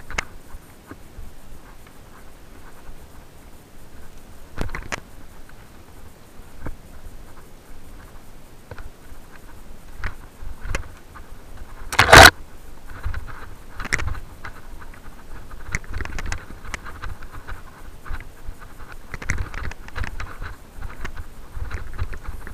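Mountain bike rattling and clicking over a rough dirt singletrack, with a low rumble and scattered knocks heard through a bike- or helmet-mounted camera. About halfway through there is one sharp, loud knock, and the rattling grows busier near the end.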